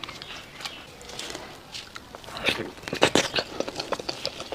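Close-miked eating sounds: bites and chewing. The first two seconds are faint, then a run of sharp clicks and smacks follows.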